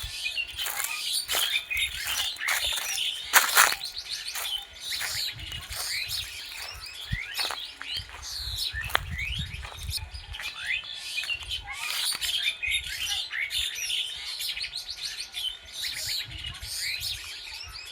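Many wild birds chirping together, a dense chorus of short, quick, downward-sliding chirps. Low rumbles come and go beneath it, and there is one sharp knock about three and a half seconds in.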